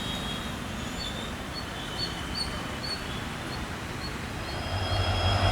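Small birds chirping over outdoor background noise. Near the end the low engine rumble of an approaching EMD diesel locomotive sets in and grows louder.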